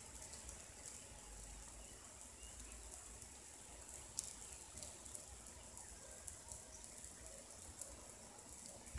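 Faint hiss and patter of micro-sprinklers spraying water, with scattered sharp clicks, the loudest about four seconds in.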